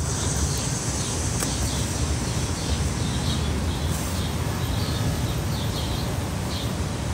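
Small birds chirping again and again, short high notes at uneven intervals, over a steady outdoor background hum.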